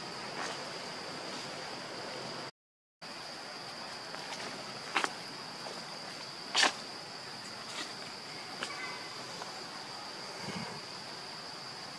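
Insects droning steadily at a high pitch, with a few sharp clicks or snaps, the loudest about six and a half seconds in. The sound cuts out for about half a second near the start.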